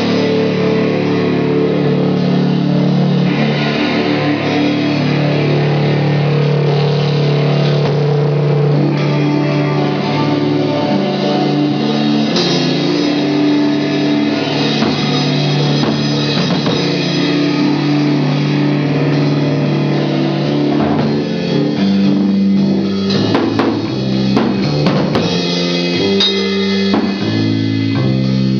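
Stoner rock band playing live: distorted electric guitar and bass holding long, heavy low notes over a drum kit. The drum and cymbal hits come forward in the last few seconds.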